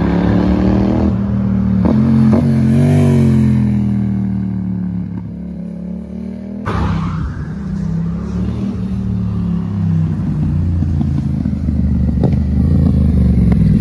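Yamaha MT-07's parallel-twin engine with an aftermarket Arrow exhaust line, revving hard under acceleration, its pitch rising and falling with the throttle. The sound drops back near the middle, then comes back sharply and stays loud.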